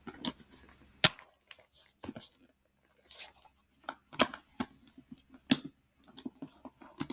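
A quilted handbag being handled and opened: its metal turn-lock clasp and chain strap give scattered sharp clicks and clinks, the sharpest about a second in, with light rustling between.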